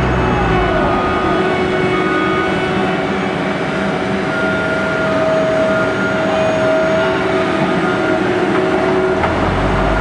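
Asphalt paver and the dump truck tipping asphalt into it running together: steady diesel engine sound with a steady machine whine over it. A tone falls in pitch during the first second, and a deeper rumble swells up near the end.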